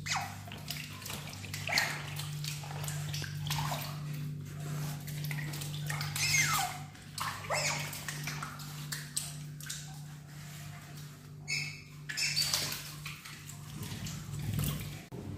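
Asian small-clawed otters squeaking in short falling chirps as they scamper about on a wet floor, over a steady low hum.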